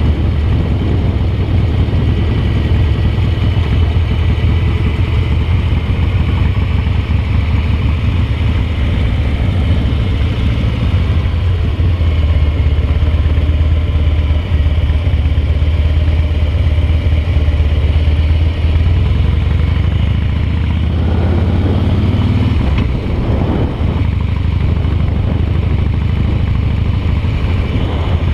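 Harley-Davidson V-twin motorcycle engine running steadily under way on the road, its sound changing briefly about three quarters of the way through.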